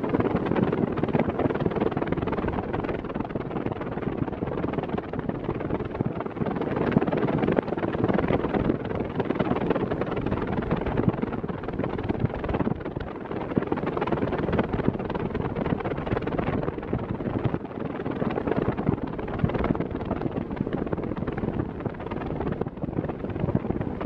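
Arno Silence Force VD40 40 cm fan running steadily on medium speed, its airflow buffeting the microphone as a steady rush of wind noise.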